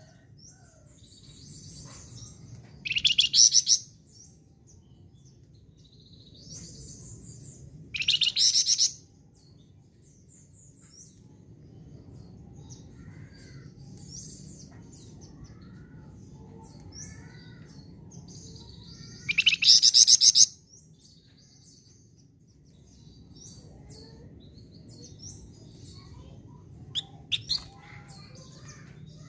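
Songbird known in Indonesia as the "flamboyan" singing actively: three loud, rapid, high trills about a second long, coming about three seconds in, eight seconds in and twenty seconds in, with softer chirps and warbles between them over a low steady hum.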